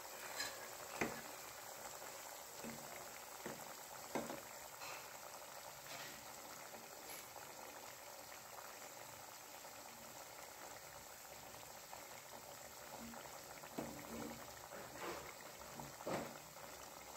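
Bihari khajoor dough pieces deep-frying in hot oil in a kadai: a steady, faint sizzling hiss with a few sharp pops scattered through it.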